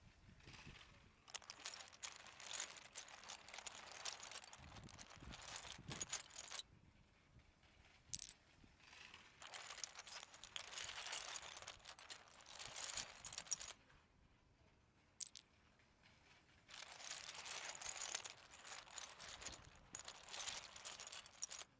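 Blue LEGO train running on plastic track: wheels clattering and clicking over the rails, swelling and fading in three long passes.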